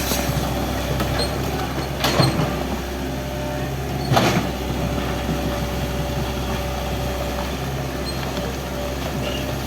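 Excavator's diesel engine running steadily under demolition work, with two sharp impacts about two and four seconds in.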